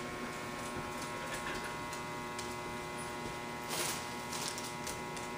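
Steady electrical hum made of several fixed tones, with faint scattered ticks and one short burst of hiss-like noise a little under four seconds in.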